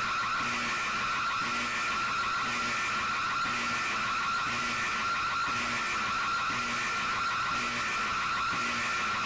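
Emergency alert attention signal: a steady, shrill electronic tone with a fast wavering in it, under a faint low pulse that repeats about once a second.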